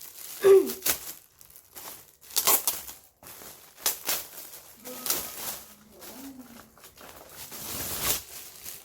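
Gift wrapping paper being crinkled and torn open in uneven rustling bursts, with a brief voiced sound, the loudest moment, about half a second in.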